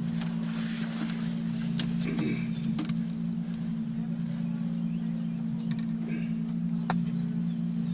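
Boat motor running steadily, a constant low hum, with a few sharp clicks from handling gear.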